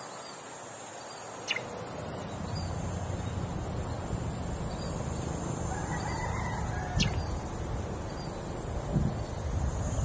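Open-field ambience: a steady high insect drone over a low rumble, two sharp clicks, and a short animal call about six seconds in.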